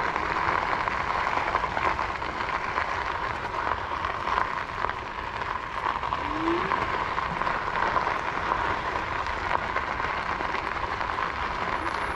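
Nakto Folding OX electric bike being ridden on a paved path: a steady rolling hiss from its fat tires and running gear, with small scattered clicks and rattles.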